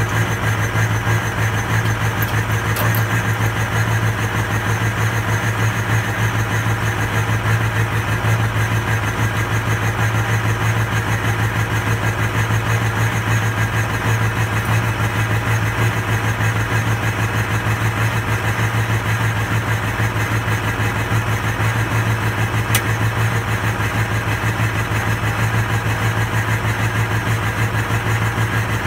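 Ford 6.0L Power Stroke V8 turbo-diesel idling steadily, with no revving.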